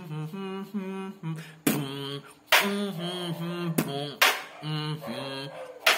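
Beatboxer humming a melody in held, stepped notes while cutting in with sharp mouth-made snare and bass-drum hits, the advanced technique of combining humming with beatbox effects. The strongest hits come about two and a half and four seconds in.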